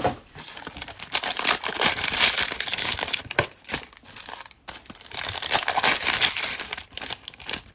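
Crinkling and tearing of a Panini Prizm football card pack's plastic wrapper as it is opened, an irregular run of crackles with brief pauses.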